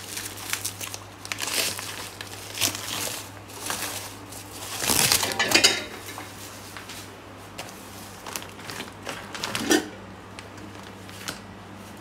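Plastic and bubble-wrap packaging crinkling and rustling in irregular bursts as it is pulled off a whey protein pouch, loudest about five seconds in. It goes quieter after about ten seconds.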